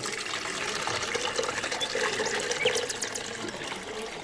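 Blended water and lemon peel being poured through a strainer into a container: a steady splashing pour of liquid.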